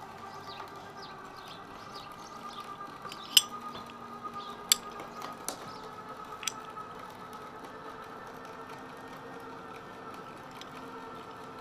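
Sharp metallic clicks of a steel carabiner and rope pulley being handled and clipped while a rope pulley system is rigged, four clicks between about three and six and a half seconds in. A faint steady hum runs underneath.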